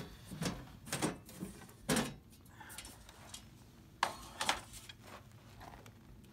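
Several sharp knocks and rustles of objects being handled, spaced irregularly, the loudest about two and four seconds in.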